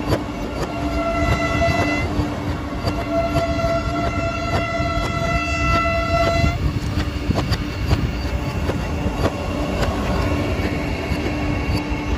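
Vande Bharat Express electric train running past: a steady rumble and hum with the clatter of wheels over rail joints. A horn sounds twice, a short blast about a second in and a longer one of nearly four seconds from about three seconds in.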